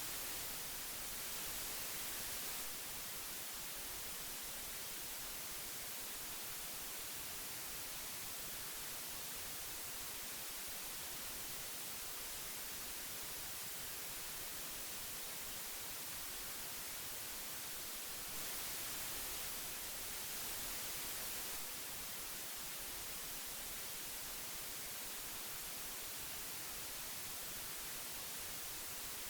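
Old magnetic tape hiss: a steady, even hiss. It swells slightly louder for a few seconds at the start and again about two-thirds of the way through.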